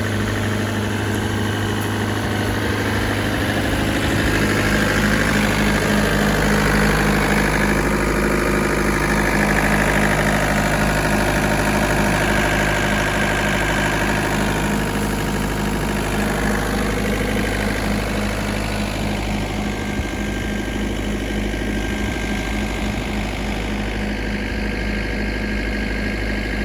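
Volvo ECR58 mini excavator's diesel engine running steadily at idle, a little louder for about ten seconds near the middle before settling back.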